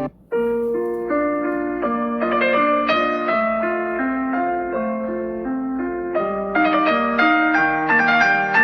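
A Samsung Galaxy S23 Ultra ringtone: a repeating piano-like melody of short notes, starting a moment in and growing louder and fuller near the end.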